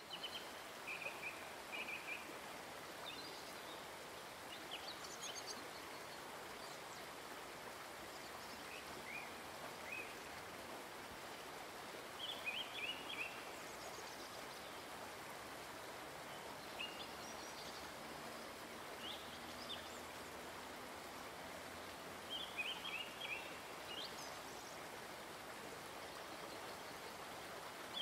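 Forest ambience: a steady, even rush of background noise, with birds calling in short bursts of chirps every few seconds.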